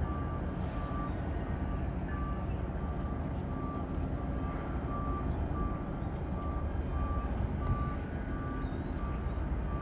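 Low steady rumble of a freight train moving through a rail yard. A high electronic beep repeats about twice a second over it.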